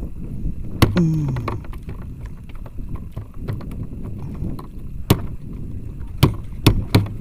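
Steady wind and water noise in a small wooden fishing boat, cut by sharp knocks: one about a second in and four quicker ones near the end.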